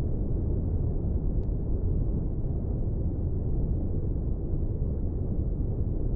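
Steady low rumble of a car driving, as picked up by a dashcam inside the cabin: an even noise without any engine note or tones.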